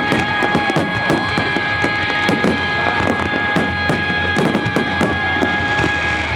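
Music played over loudspeakers with a long held chord, under many sharp crackles and pops from a fireworks display.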